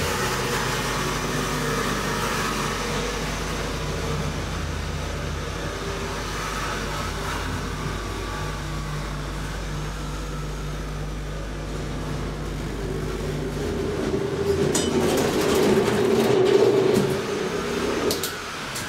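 An elevator car travelling in its shaft, with a steady low motor hum and running noise that cuts out about 14 seconds in as it stops. A few sharp clicks and a louder rattling stretch follow.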